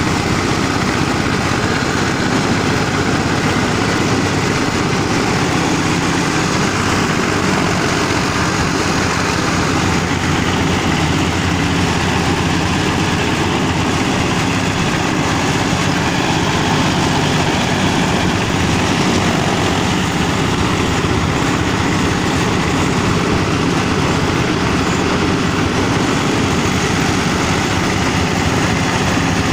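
A motor-driven machine running steadily at constant speed: a low engine-like hum under an even mechanical noise, with no change in load.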